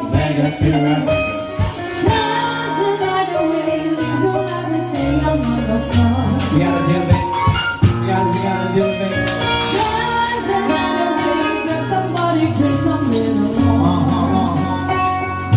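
Live band music from keyboards, with held bass notes changing every second or two under a steady beat, and a singer on microphone.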